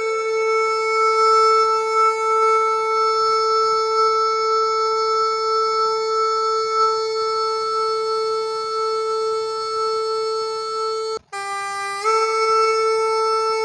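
Phu Thai free-reed bamboo pipe (pi Phu Thai) playing solo, holding one long, reedy note for about eleven seconds. After a short break for breath it comes back on a slightly lower note and then steps up again.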